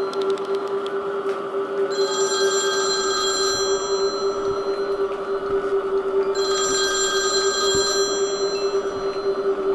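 A telephone bell ringing, its brighter jangle coming back in pulses about every four and a half seconds over a steady hum.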